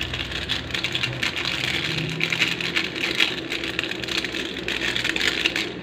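Stir-fried vegetables (bitter melon, broccoli, eggplant) sizzling and crackling in a hot pan, with soy sauce just added.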